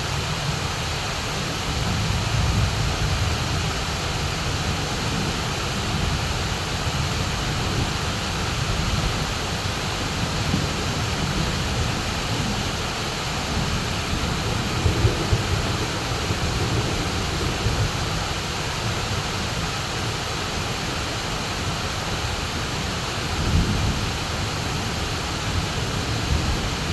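Heavy downpour of rain, a steady hiss, over a low rumble of thunder that swells briefly in the middle and again near the end.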